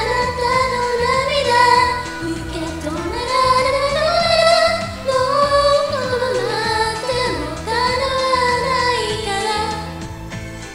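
Female voice singing a Japanese pop song over an instrumental backing track, a fan cover of a Vocaloid duet. The singing stops near the end and the backing carries on more quietly.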